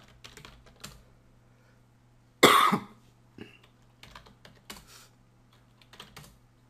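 Computer keyboard keys tapped in short runs as terminal commands are typed. A single loud cough comes about two and a half seconds in.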